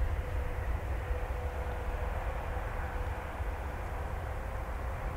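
Airbus A400M's four turboprop engines running while the aircraft is on the ground, a steady distant drone with a thin steady hum through it.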